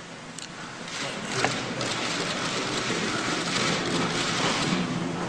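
A flurry of many press camera shutters clicking rapidly over room noise, getting louder about a second in, with a few sharper single clicks.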